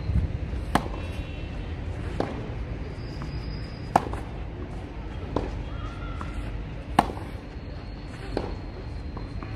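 Tennis balls struck by racquets in a baseline rally on a clay court. Sharp single hits come about every one and a half seconds, alternating loud and fainter: the near player's strokes and the opponent's returns.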